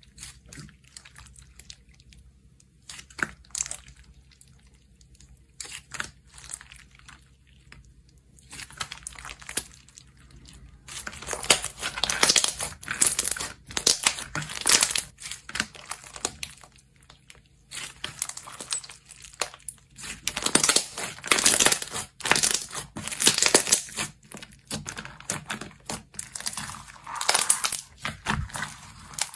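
Slime being squished and stretched by hand, making crinkly, crackling sounds. A few scattered crackles at first, then dense, louder crackling from about a third of the way in, with short pauses.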